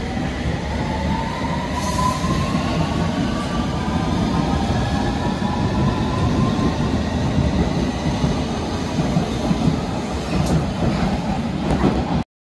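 London Underground S7 Stock train pulling away along the platform, its traction motors whining in a rising pitch as it gathers speed, over the rumble of wheels on the rails. The sound cuts off suddenly near the end.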